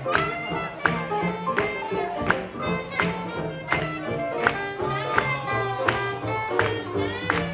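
Live swing jazz band playing an up-tempo tune: a stepping double bass line and acoustic guitar under a horn melody, with a sharp accent about every three-quarters of a second.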